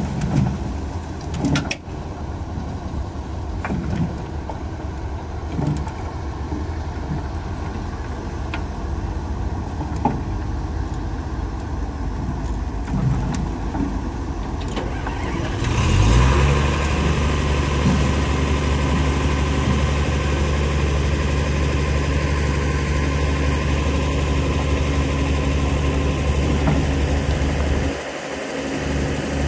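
Heavy diesel engine of earthmoving machinery running, with a few knocks in the first half. About halfway through it picks up sharply and holds a loud, steady drone under load, dipping briefly near the end.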